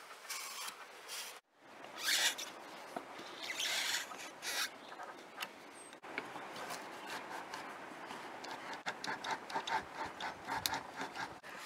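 A serrated bread knife sawing and scraping through the cured Sika sealant bead that glues a solar panel's aluminium frame to the roof: a few louder scrapes early, then a run of quick, short rasping strokes in the second half.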